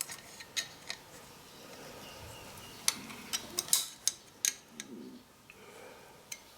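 Light metallic clicks and taps of hand tools working on a limit switch mount, scattered and irregular, with a handful of sharper clicks about three to four seconds in.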